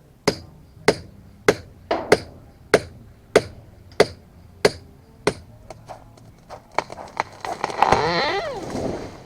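A tree coming down after felling: about nine sharp knocks, evenly spaced a little over half a second apart, then a louder crackling crash of breaking wood and branches lasting a second and a half, about seven and a half seconds in.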